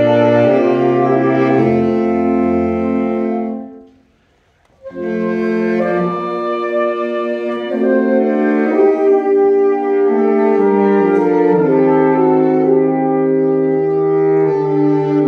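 Saxophone quartet, with a baritone saxophone on the bass line, playing sustained chords. The music breaks off a little under four seconds in for about a second of near silence, then resumes.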